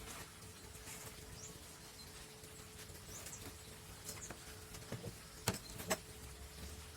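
Light handling noises of workshop gluing: scattered soft taps and scrapes, with two sharp clicks close together about five and a half seconds in, over a faint steady hum.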